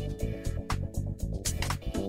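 Background music: an upbeat instrumental with a steady drum beat, bass and keyboard.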